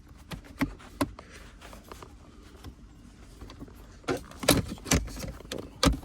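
Scattered clicks and knocks of plastic and metal trim being handled at a Camaro's shifter console, a few at first and a louder run of knocks near the end.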